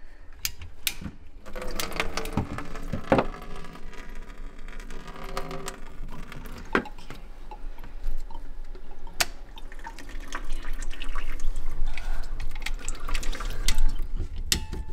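Water trickling and dripping into a plastic bucket from the under-sink plumbing as the supply line is taken off the valve, with several sharp clicks from the wrench and metal fittings.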